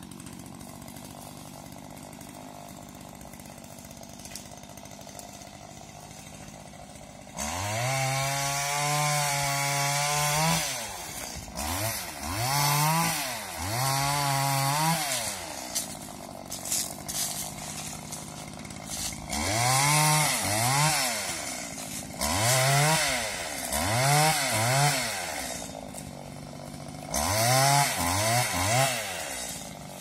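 Two-stroke petrol pole saw idling quietly, then, about seven seconds in, revved hard again and again as it cuts hazel stems. Each rev is a rising whine that holds briefly and falls back, with short dips toward idle between them.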